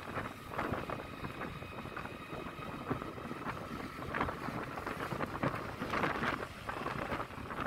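Wind rushing and buffeting over the microphone of a moving Yamaha Lexi scooter, with the scooter's engine running and passing traffic underneath. A faint steady whine is heard for a few seconds early on.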